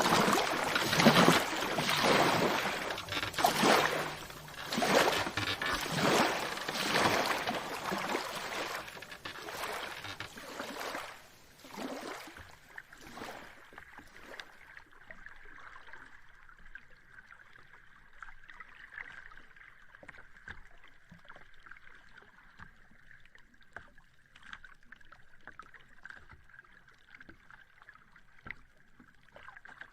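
Sea water washing and splashing in loud repeated surges, one every second or two, which die away about halfway through to quiet, gentle lapping with small ticks and a faint steady high tone.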